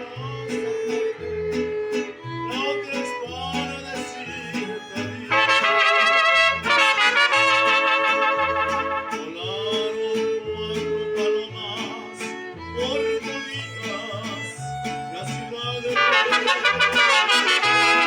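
Mariachi band playing: trumpets carrying the melody over strummed guitars and a guitarrón plucking a steady bass line. The trumpets come in loudest about five seconds in and again near the end.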